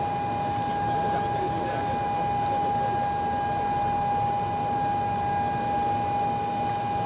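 A steady single-pitched whine, held unchanged throughout, over a hiss of background noise.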